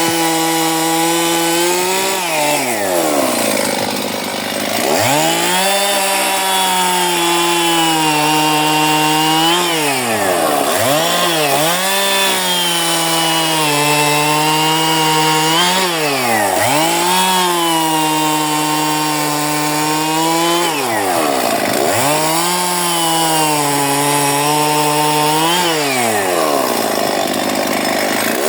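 Husqvarna Partner 411 two-stroke chainsaw running at high revs, its engine note sagging and climbing back about six times.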